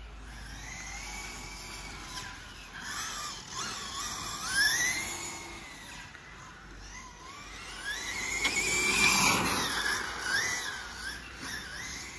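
Radio-controlled cars' motors whining as they lap, the pitch rising and falling as they accelerate and slow for corners. They pass closest about four and a half seconds in and again around nine seconds.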